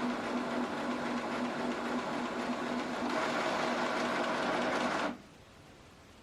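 HP DeskJet 3700 scanner running while it scans a page: a steady mechanical whir with a faint pulsing hum. It grows a little louder about three seconds in and stops abruptly about five seconds in as the scan finishes.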